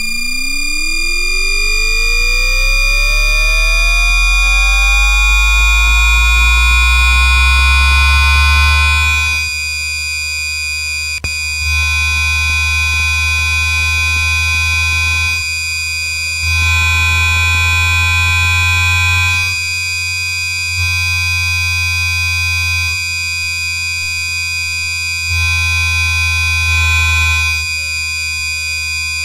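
Siemens two-level IGBT VVVF traction inverter of a Houston METRORail H1 light-rail car, picked up electrically by an inductor coil near the traction motor: a steady 1200 Hz asynchronous PWM whine with a rising tone and tones fanning away from it as the train accelerates. From about ten seconds in, the sound steps down and back up several times as traction power is varied, while the train goes on to cruise.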